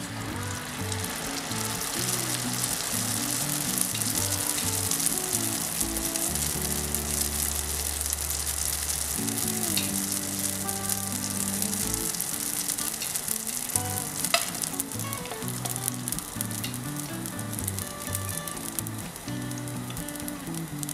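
Yeast dough flatbread frying in shallow vegetable oil in a frying pan, sizzling and crackling steadily. The sizzle builds as the raw dough goes into the hot oil.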